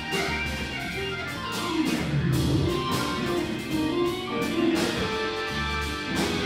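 Blues band playing an instrumental swing tune live, with electric guitar over a drum kit and bass.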